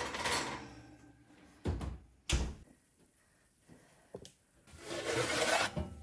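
Metal baking sheet and oven rack clattering in an open oven: a sharp clank at the start, two more knocks about two seconds in, a small click, then a second-long scraping rush of metal sliding near the end.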